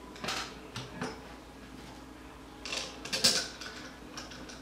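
Small metal clicks and rattles from a shotgun light-and-laser clamp mount and its Allen screws being handled and started by hand. There are a few single clicks in the first second and a louder cluster of clicks about three seconds in.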